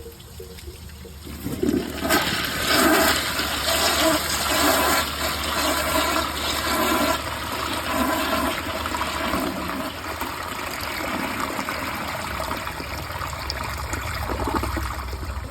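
2011 Glacier Bay toilet flushed with its tank overfilled. The flush starts about a second and a half in: a loud rush of water with a gurgle about once a second, easing somewhat in the second half.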